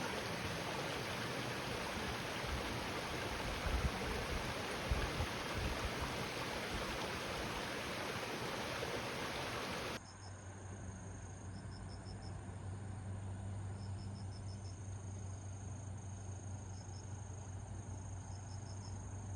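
Steady rush of flowing stream water. About halfway through it cuts abruptly to a quieter background: a low steady hum with short bursts of high insect chirping.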